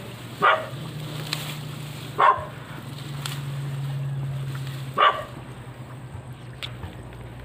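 A dog barking three times, a couple of seconds apart, over a steady low hum.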